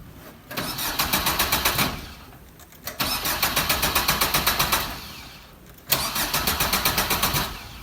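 Car engine being cranked by the starter in three separate tries of about two seconds each, a fast, even chugging, without catching: a crank-no-start.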